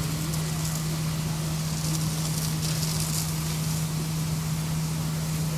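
A fire engine's pump running with a steady low hum, under the hiss of a hose stream spraying water onto the smoldering debris of a burned-out building.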